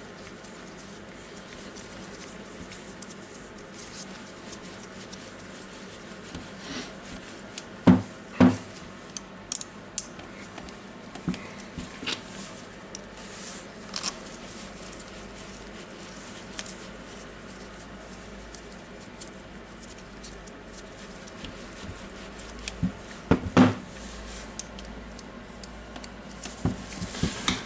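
Scattered small clicks and taps of the Makita DTW1002 nut gun's plastic housing and screws being handled and screwed together by hand, with two louder double knocks, one about eight seconds in and one some fifteen seconds later.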